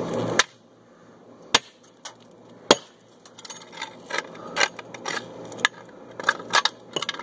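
Hard blows struck against a plastic LEGO Darth Vader alarm clock: three sharp knocks in the first three seconds, then a quicker run of lighter clicks and knocks as the plastic pieces are hit and shift.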